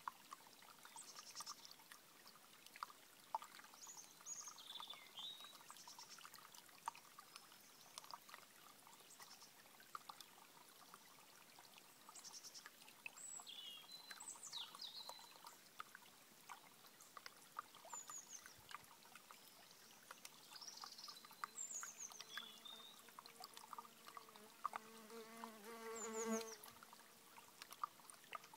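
Small stream trickling and gurgling over stones, with small birds giving short chirps now and then. Near the end a flying insect buzzes close by for a few seconds.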